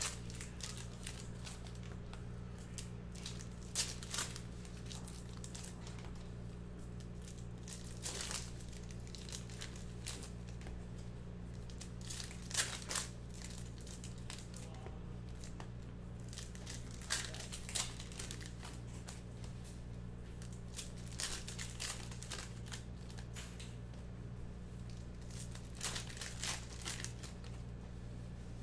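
Trading card pack wrappers being torn open and crinkled, in short irregular bursts of crackling, over a steady low hum.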